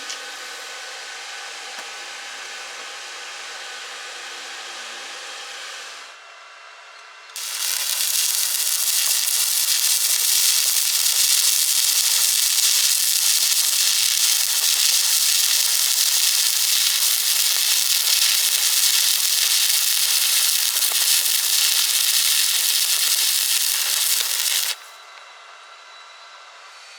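Welding arc crackling and hissing steadily. A quieter run lasts about six seconds; after a short pause a louder run goes on for about seventeen seconds and cuts off suddenly.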